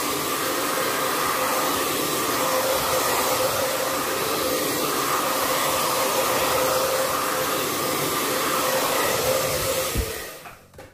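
Hand-held hair dryer blowing steadily with a steady hum, drying the freshly applied mahogany bitumen stain on a wooden plaque; switched off about ten seconds in.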